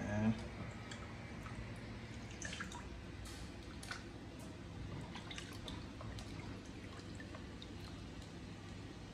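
Pot of seafood-boil broth bubbling at a boil, with small drips and plops as potatoes are lowered into it by hand. There is a brief thud just after the start.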